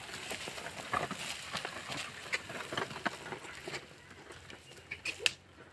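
Irregular crunches and scrapes of an ox-drawn wooden plough, the oxen's hooves and a man's footsteps working through dry, cloddy soil and dead leaves. The sounds thin out in the second half, with one sharp click about five seconds in.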